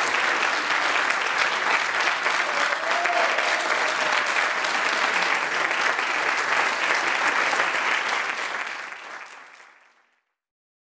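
Theatre audience applauding, dense steady clapping that fades away near the end.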